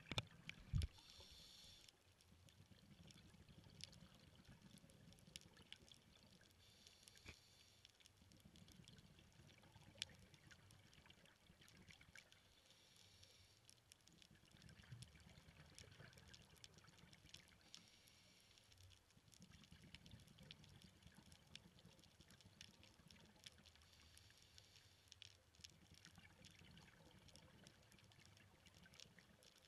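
Faint, muffled underwater sound of a scuba diver's regulator breathing: a short hiss about every six seconds, with low bubbling in between. Two sharp knocks come just after the start.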